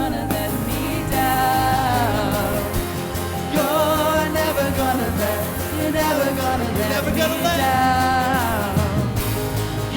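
Live worship band playing a contemporary Christian song, with a singer's voice carrying the melody over steady instruments.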